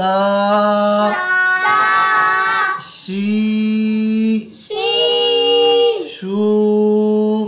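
Voices chanting drawn-out Arabic letter-and-vowel syllables in a sing-song, each syllable held about a second. A lower voice alternates with higher children's voices.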